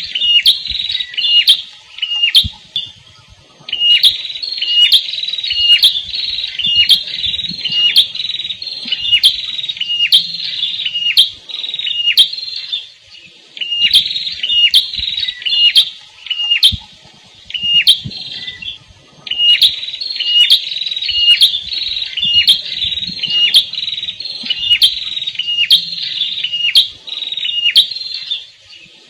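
Prenjak kepala merah singing: loud, sharp chirping notes repeated about twice a second in long runs, with brief pauses between runs.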